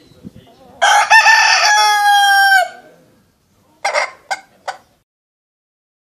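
Rooster crowing: one long crow of about two seconds, starting about a second in and dropping slightly in pitch at the end, followed by three short calls.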